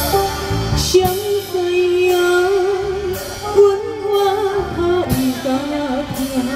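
A woman singing into a microphone over amplified backing music, holding long notes with vibrato, with a beat about every two seconds.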